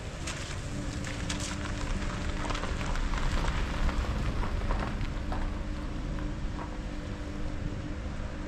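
Footsteps crunching on a wet gravel road, heard as scattered crackles that thin out after about five seconds, over a steady rushing outdoor noise and a low steady hum.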